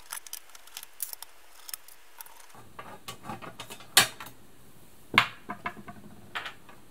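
Clicks and knocks of a sewing machine's bottom cover being handled and lifted off, with small screws and parts set down on the bench. The two sharpest knocks come about four and five seconds in.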